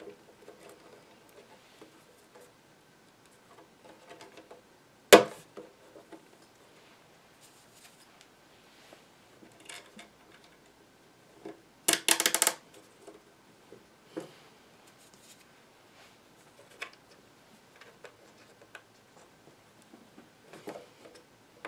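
Hands fitting a speaker grill back into an empty Bakelite radio cabinet: scattered light scrapes and clicks, a single sharp knock about five seconds in and a brief loud clatter of clicks around twelve seconds.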